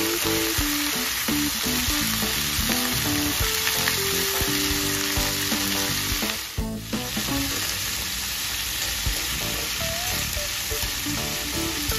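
Whole head-on prawns sizzling in hot oil in a stainless steel pan, being turned over with metal tongs. Background music plays under the sizzle for the first half and fades after a brief drop about halfway through.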